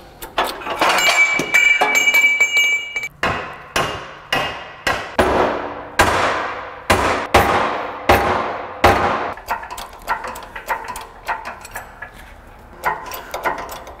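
A mallet striking a control-arm bushing held in a bench vise to start it into its bore: a series of hard blows, about one every half second, each with a metallic ring.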